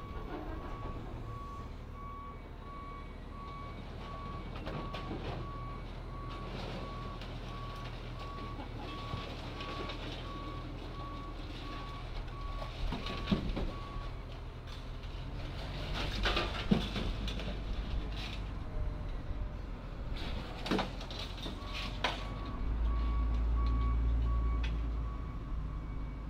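Case 621C wheel loader's diesel engine running under load while its backup alarm beeps steadily, the beeping pausing midway and starting again later. Metal clanks and creaks come from a rusted car body being lifted off its frame by the loader's forks, and the engine revs up near the end.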